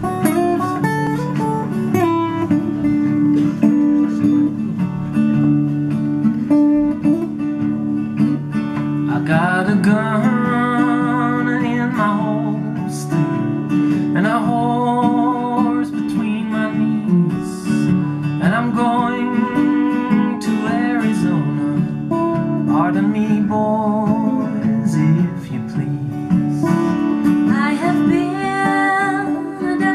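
Two acoustic guitars strumming and picking a country-style song, with a man singing from about nine seconds in, in phrases with short gaps.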